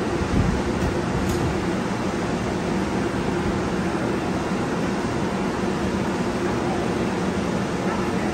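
Steady hum of a TriMet MAX light-rail train standing at the platform with its doors open, its air-conditioning and onboard equipment running. A soft low thump about half a second in.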